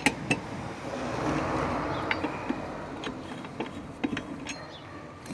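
Car wheel bolts being worked loose and taken out with a wrench: scattered metallic clicks and clinks, over a rushing noise that swells about a second in and then eases off.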